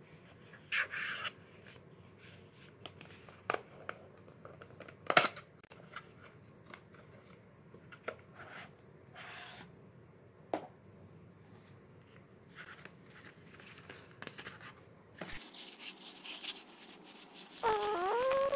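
Paper handling on a tabletop: a rolled poster and its white paper sleeve being slid, rustled and tapped, in scattered short sounds with one sharper tap about five seconds in. Near the end a person's voice begins.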